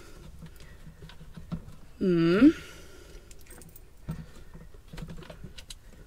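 Plastic draining basket of a portable washing machine being twisted and rattled in its drum, giving light clicks and scrapes as it is turned to find its release position. About two seconds in, a woman lets out one short voiced sound whose pitch dips and rises.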